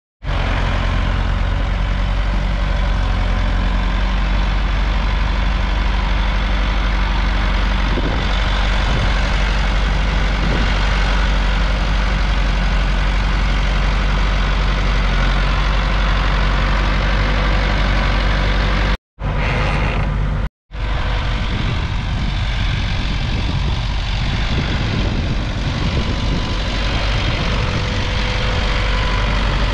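International Harvester 685's 3.9-litre four-cylinder diesel engine running steadily under load, pulling a two-furrow mounted plough through the soil. There are two brief gaps in the sound about two-thirds of the way through.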